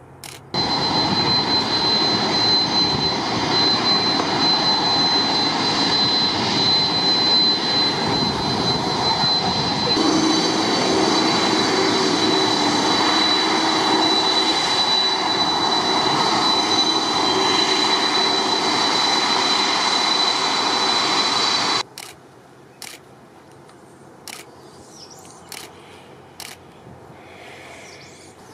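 Boeing 747's four jet engines at high thrust, heard from directly behind the aircraft: a loud, steady jet-blast noise with a thin high whine on top. It starts suddenly about half a second in and cuts off abruptly about 22 seconds in, leaving faint wind noise and a few clicks.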